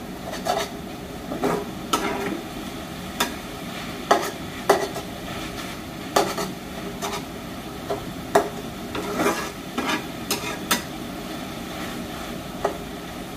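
A spatula scraping and clacking in a pan, in irregular strokes about once or twice a second, as amaranth greens are stirred. A steady sizzle of the greens frying runs underneath while their water cooks off.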